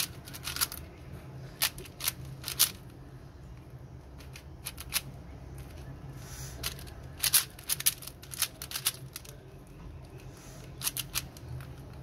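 Plastic 4x4 Rubik's cube being turned by hand: quick clacking clicks of the layers snapping round, coming in irregular flurries of several turns with short pauses between.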